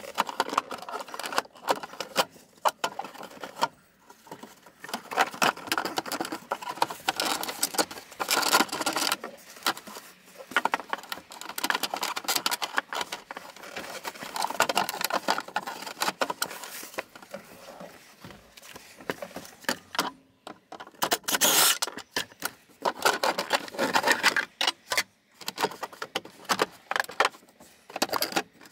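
Hands working in a truck's footwell: irregular clicking, rattling and scraping as plastic trim panels around the pedals are handled and pulled away.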